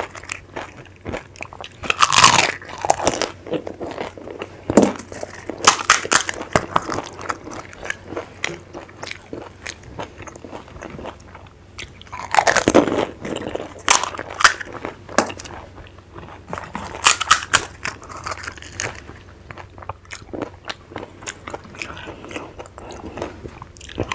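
Close-miked eating of pani puri: crisp fried puri shells being bitten, crunched and chewed in loud bouts every few seconds, with smaller crackles in between.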